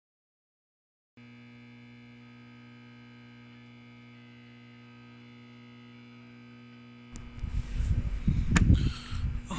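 Silence for about a second, then a steady electrical hum with many overtones; about seven seconds in, loud crackling static with deep rumbling breaks in, with one sharp click near the end.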